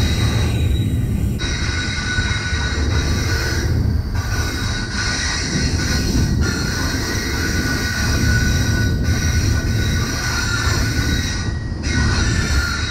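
Freight train rolling, heard from on board an intermodal well car: a steady low rumble of wheels and car body, with thin high-pitched squealing of wheels on the rails over it.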